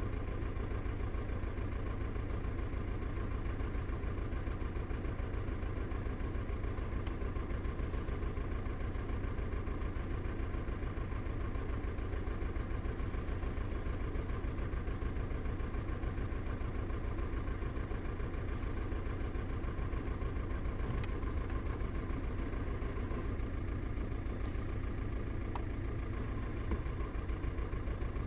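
Volkswagen Passat engine idling steadily with a fast, even low pulsing; the car has logged a cylinder 1 misfire (fault 000769 / P0301).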